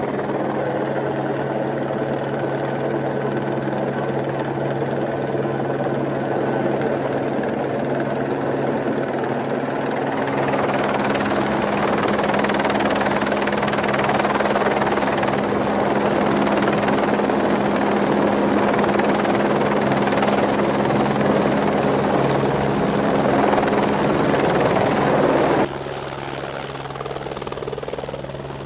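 Helicopter flying low overhead: a steady engine and rotor drone that grows louder and fuller about ten seconds in, then drops sharply in level near the end.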